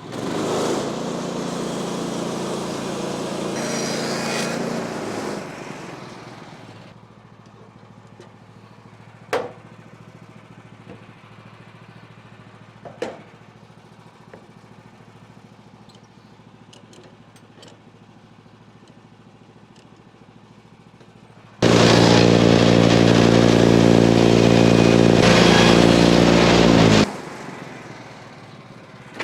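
An engine running fast and steady, dropping to a quiet idle about six seconds in, with a couple of sharp knocks. Near the end it runs loud again for about five seconds and then cuts off suddenly.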